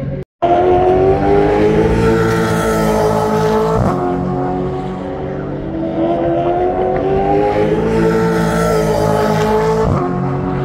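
Several V8 Supercars race cars accelerating hard, their engine notes climbing together, with an upshift about four seconds in and another near the end.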